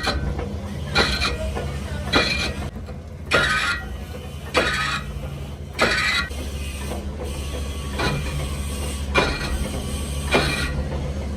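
Sharp metallic knocks, each with a short ring, repeating evenly about once every 1.2 seconds over a steady low machine hum, from metal repair work on an axle housing.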